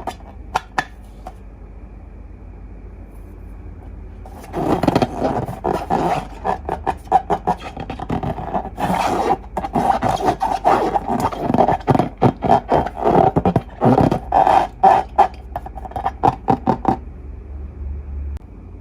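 Slime being worked by hand: a dense run of irregular wet crackling and squishing that starts about four and a half seconds in and stops near the end. A low steady hum runs underneath.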